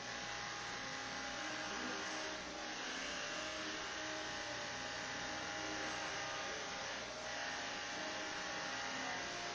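A small electric motor running steadily with a hum.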